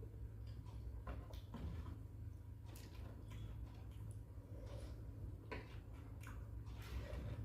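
Close-up eating sounds: chewing, with scattered soft clicks and crunches from the mouth and food, over a steady low hum.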